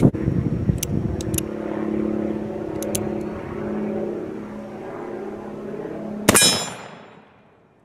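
A single shot from a .44 Pietta 1858 Sheriff black powder cap-and-ball revolver about six seconds in, its report dying away over half a second. Before it, a few light clicks over a steady low engine-like hum.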